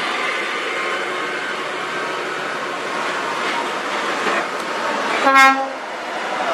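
UD Quester tractor unit's diesel engine pulling a heavy load up a grade, with tyre and road noise. About five seconds in there is one short, loud horn blast.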